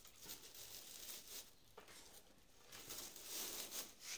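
Dry straw packing rustling and crackling as hands handle mangoes in a straw-lined cardboard box, louder for a second or so near the end.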